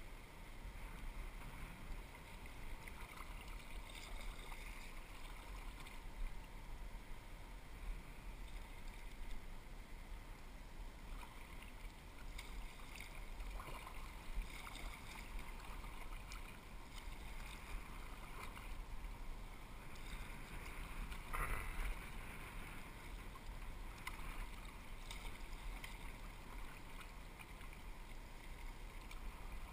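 Kayak paddling on a river: a steady rush of moving water with scattered splashes from paddle strokes. One louder splash comes about three-quarters of the way through.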